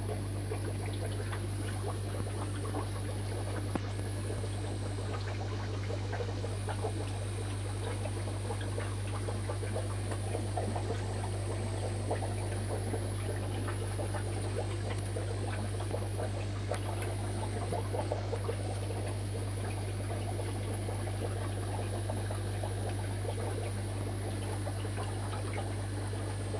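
Aquarium filtration running: water bubbling and trickling in a dense crackle over a steady low pump hum.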